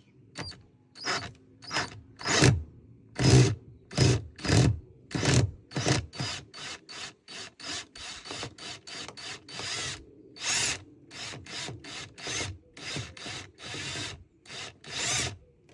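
A long series of short scraping, rubbing strokes from hand work on a washing machine's door lock parts, about two to three a second, the loudest a few seconds in, with a short pause about ten seconds in.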